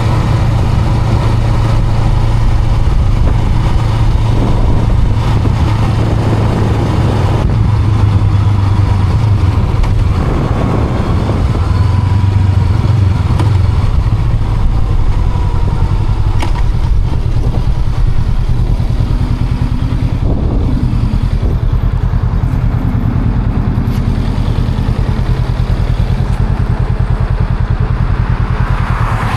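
Honda Rebel 500's parallel-twin engine running steadily as the motorcycle is ridden, with only small changes in engine speed.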